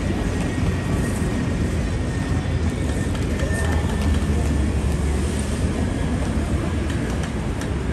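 City street ambience dominated by a steady low rumble of vehicles, swelling slightly around the middle, with faint scattered ticks and a thin steady tone above it.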